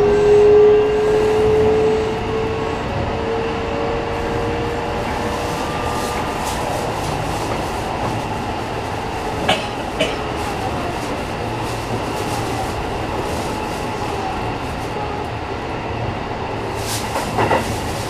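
Running noise inside a Sanyo Electric Railway 6000 series train car: a steady rumble of wheels on track, with a motor whine that rises slightly in pitch and fades out over the first few seconds. Two sharp clicks come about nine and a half seconds in, and a few more near the end.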